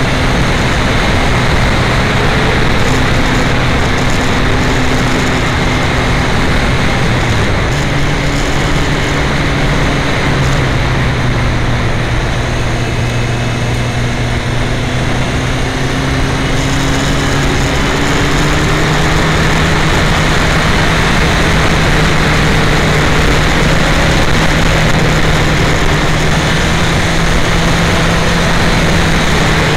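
Yamaha FZ1 motorcycle's inline-four engine running while riding, its note stepping up about seven seconds in and sitting higher through the second half, under heavy wind noise buffeting an uncovered camera microphone.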